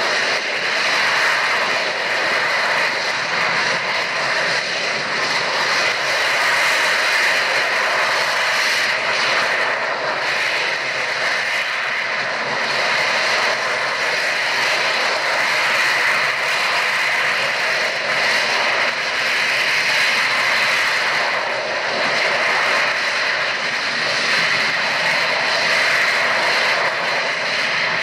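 Harrier jump jet hovering, its Pegasus vectored-thrust turbofan running with a loud, steady rushing noise and a thin high whine on top.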